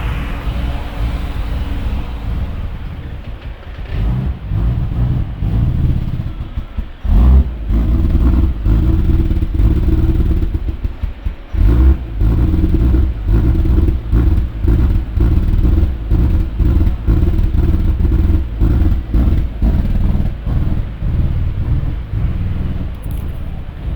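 Ford BF Falcon XR6 Turbo's turbocharged 4.0-litre inline-six idling roughly with its throttle position sensor unplugged. The note surges and sags unevenly, dipping hard about seven seconds in and again near twelve seconds, then pulsing in an uneven rhythm about one and a half times a second.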